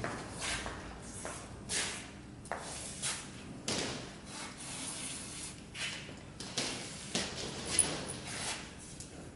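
A string of short, irregular scuffing and rubbing noises, about a dozen, from people moving about and handling things at the mount.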